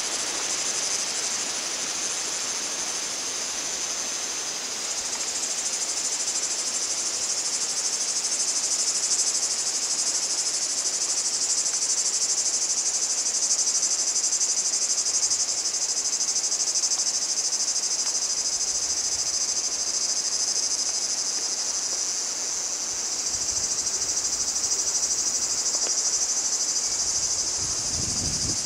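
A steady chorus of insects: a dense, unbroken high-pitched buzz. A low rumble comes in near the end.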